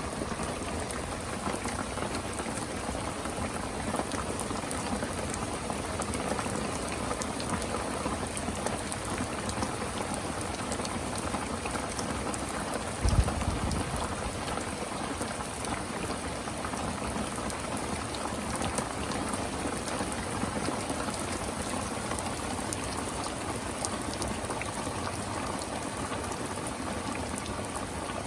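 Steady rain falling, with a single brief low thump about halfway through.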